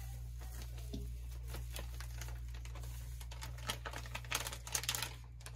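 Crinkling and rustling of a small flour packet and a plastic bag being handled, with a burst of louder crinkles about four seconds in, over a steady low hum.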